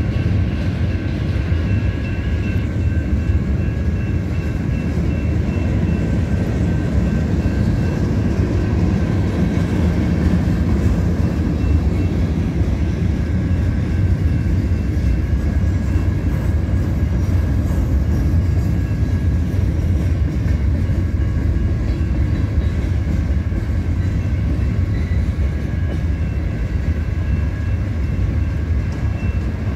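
Freight train cars rolling past close by: a steady, loud rumble of steel wheels on rail, with thin steady high tones running over it.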